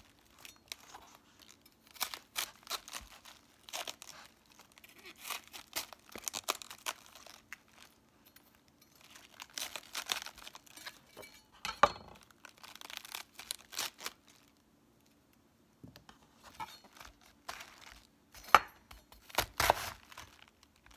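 Large kitchen knife cutting through a raw green cabbage half on a wooden cutting board, cutting out the hard core: crisp crunching and crackling of the dense leaves in bursts, with a few sharp knocks and a short pause partway through.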